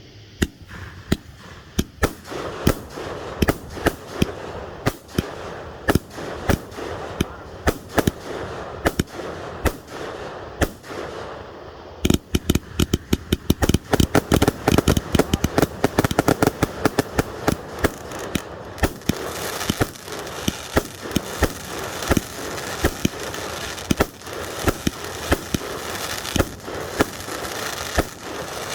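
A 118-shot consumer firework cake firing: a long string of sharp bangs, spaced out at first and coming in a rapid volley from about twelve seconds in, with crackling under the shots in the last third.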